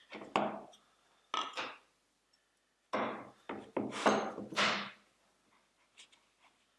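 A steel rule and combination square set down and slid into position on a plywood board, clattering and scraping in four or five short bursts over the first five seconds, then a few faint taps.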